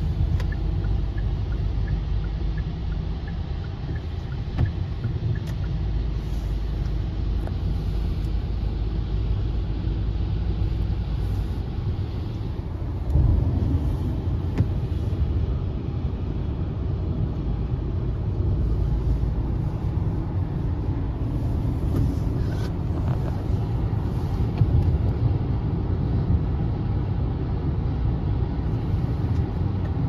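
Steady road and engine rumble inside the cabin of a car driving on a wet, snowy highway, with a brief louder swell about thirteen seconds in.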